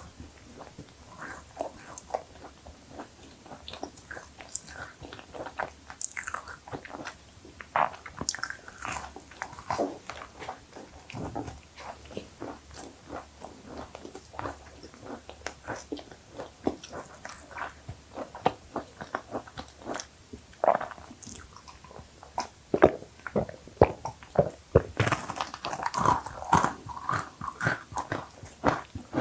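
Biting into and chewing cookies, with irregular crunches throughout that grow denser and louder in the last few seconds.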